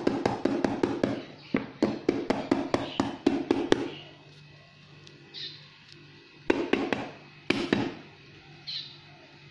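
Hand tapping on the upturned bottom of an aluminium leche flan mold set face-down on a plate, a quick run of light taps, about four or five a second, for the first four seconds, then a few louder knocks later: loosening the steamed flan so it drops out onto the plate.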